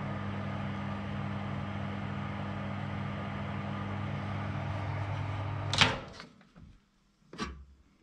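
Whirlpool microwave oven running a heating cycle on its replacement Panasonic transformer, a steady mains hum, without blowing its fuse. About six seconds in, the door is pulled open with a loud clunk that cuts the hum off, and a knock follows about a second and a half later.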